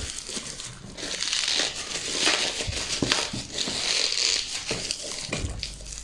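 Packaging crinkling and crackling as it is handled and cut open with scissors, an irregular run of rustles and small clicks.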